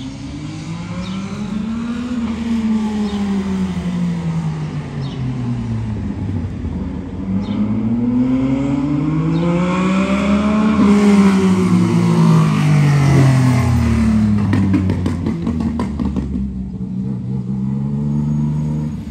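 Yamaha MT-09 three-cylinder motorcycle engine, remapped and running a straight-through exhaust with no silencer, loud, its revs climbing and falling twice as the bike rides up and is loudest about eleven seconds in. As it slows it gives a quick run of crackling pops on the overrun, then settles to a steady idle near the end.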